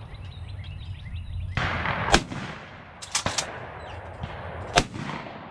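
Shotgun shots at a clay target: two sharp reports about two and a half seconds apart, the first the loudest, with two fainter shots close together between them.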